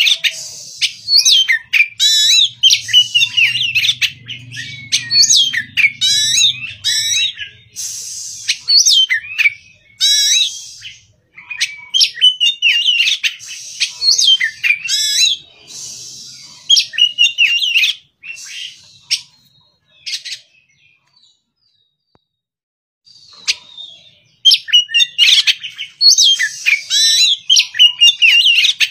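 Oriental magpie-robin (kacer) singing: rapid, varied whistled and chirping phrases, with a few seconds' pause about two-thirds of the way through before the song resumes.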